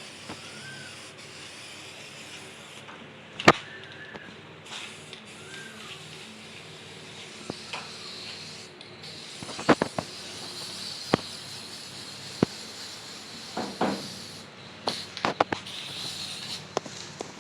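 Paint being sprayed onto the rusty truck bed: a steady spray hiss that comes on more strongly about halfway through, broken by several sharp clicks and knocks.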